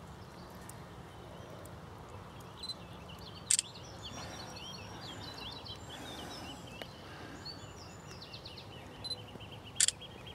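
Outdoor ambience with a steady background hiss and a small songbird singing in quick runs of short, high chirping notes. Two sharp clicks about six seconds apart are the loudest sounds.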